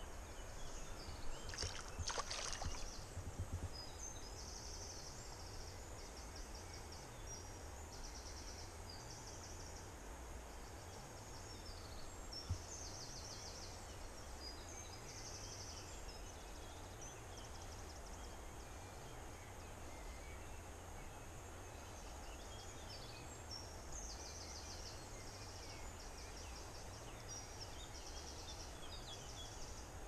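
Insects chirping in short, rapid high-pitched trills that repeat every second or two over a low steady rumble. About two seconds in, a few louder sharp clicks and rustles come from the angler's hands handling the fly line and rod.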